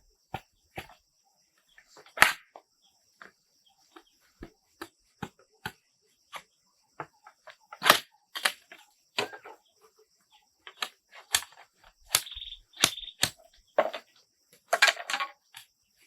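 Irregular sharp clicks and knocks, a few much louder than the rest, over a steady high insect drone.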